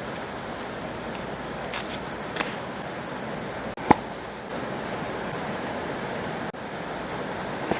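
Steady rain sound, with a few light taps and clicks of stationery being handled; the sharpest tap comes about four seconds in.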